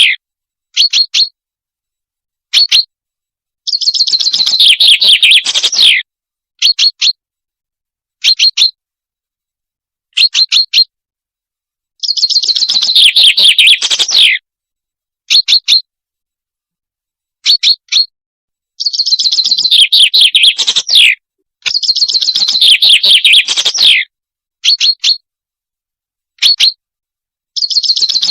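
Recorded song of the bird known in Arabic as sulanj (صلنج), played as a hunting lure call. Trilled phrases of about two seconds, each sweeping down in pitch, alternate with short single chirps, in a repeating pattern with silent gaps.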